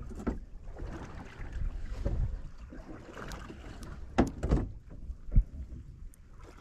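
Wind buffeting the microphone and water against a small fishing boat's hull, with a few sharp knocks between about four and five and a half seconds in.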